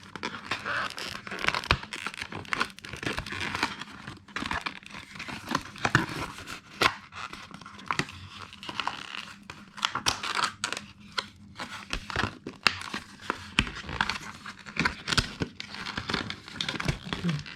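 Product packaging being crinkled and torn open by hand: continuous rustling and crackling, broken by many sharp clicks and snaps.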